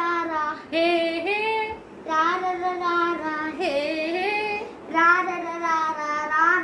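A high voice singing playful, wordless drawn-out notes, like 'la la la', in four short phrases with brief breaks between them.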